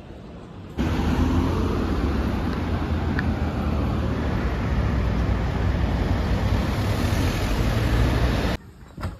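Street traffic: cars driving through a city intersection, a steady engine and tyre rumble. It begins abruptly about a second in and stops abruptly near the end.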